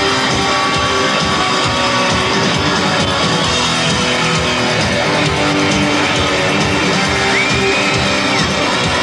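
Rock band playing an instrumental passage without vocals: strummed electric guitars over bass.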